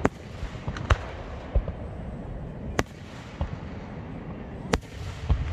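Aerial fireworks shells bursting in a display: about seven sharp bangs at irregular intervals, over a continuous low rumble.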